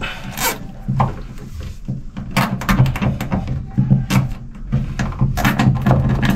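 Hands fastening cable ties around electrical wiring on a fibreglass bulkhead: an irregular run of clicks, rustles and knocks over a low hum.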